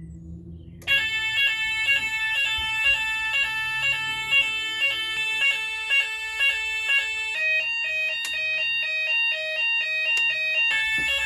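Fire alarm sounders start up about a second in with a loud, pulsing multi-tone alarm, as the fire panel's output delay runs out and the system goes into fire. About seven seconds in the pattern changes to a different alternating two-tone sound.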